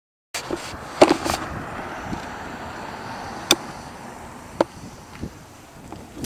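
Mountain bike rolling over pavement, with wind noise on a helmet-mounted iPod nano's microphone and a few sharp clicks and knocks, the loudest cluster about a second in.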